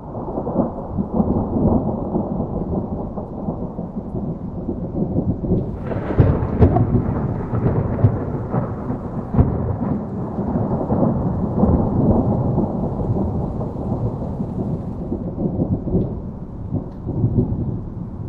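Thunder rumbling in a long, continuous low roll, with a sharper crackling peal about six seconds in, over gentle rain.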